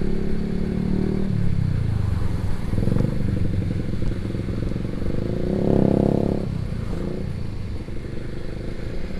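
Motorcycle engine running under way. Its pitch drops about a second in, then the revs rise briefly around three seconds and again around six seconds in.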